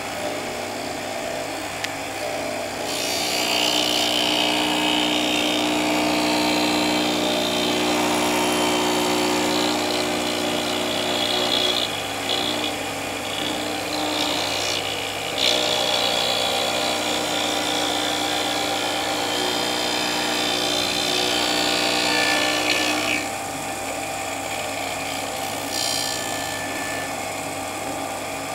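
CNC milling machine running with an end mill cutting the vanes of a pump impeller: a steady motor hum throughout, with a louder cutting noise from about three seconds in that drops away near the end.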